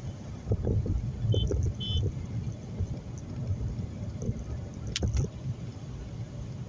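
Low rumble of road and engine noise from a car being driven, with uneven bumps. Two short high beeps come about a second and a half in, and a sharp click about 5 s in.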